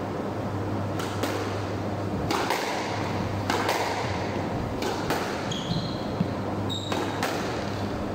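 Squash rally: the ball cracking off the rackets, walls and wooden floor in sharp strikes every half second to second, with a few short rubber-sole squeaks from the court shoes on the wooden floor near the middle. A steady low hum runs underneath.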